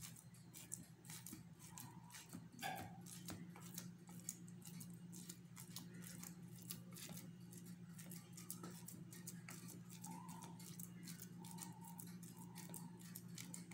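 Fingertips dimpling oiled focaccia dough in a metal baking pan: faint, quick, sticky little clicks and pats over a low steady hum.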